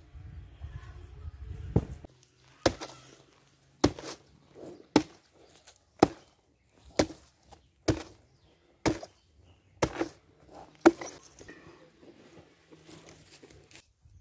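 Machete chopping through a banana stem, about ten strokes at roughly one a second, after a low rumble at the start.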